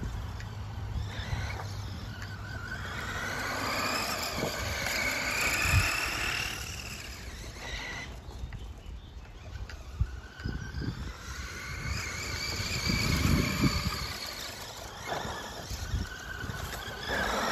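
HBX mini RC monster truck's electric motor whining, its pitch rising and falling as the truck speeds up and slows down, over a low rumble. The owner says the battery hasn't charged properly.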